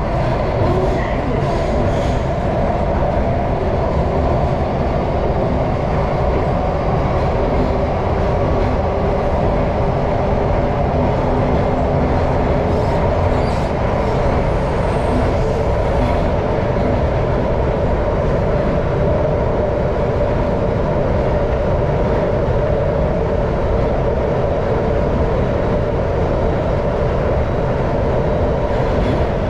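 Singapore MRT train running at steady speed, a continuous rumble with a faint steady hum, heard from inside the car.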